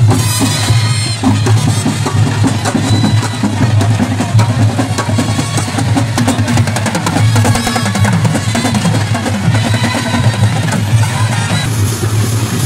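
Loud, dense festival drumming with rapid strokes and a deep booming bass, mixed with other pitched instruments, playing for a procession crowd.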